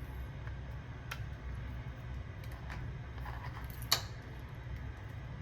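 A few small, sharp clicks of laptop parts being handled, the loudest about four seconds in, over a low steady hum.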